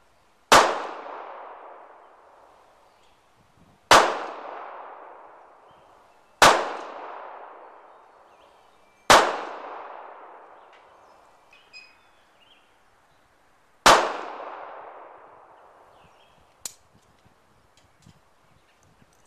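Five single handgun shots, spaced about two to five seconds apart, each followed by a long echoing tail. A much fainter sharp click comes a few seconds after the last shot.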